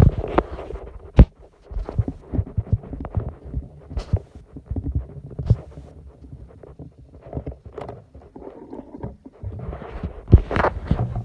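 Slime being squeezed and pressed between fingers close to the microphone, making irregular clicks and pops over low thuds. There is a sharp pop about a second in, and a louder run of squishing near the end.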